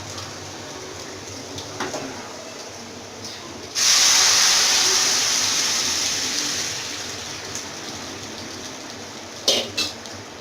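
Hot tempering oil with garlic, onion and green chillies sizzling loudly as the boiled vegetable-and-lentil curry is poured into it. The sizzle starts suddenly about four seconds in and fades over a few seconds. A couple of sharp utensil clinks come near the end.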